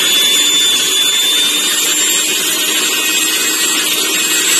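Sujata Dynamix 900-watt mixer grinder motor running unloaded with no jar fitted: a steady high whine over an even whirring hiss.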